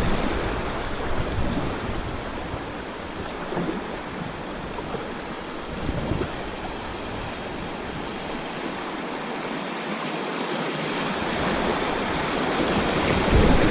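Steady rush of moving river water around a kayak, an even wash of noise with a few faint splashes.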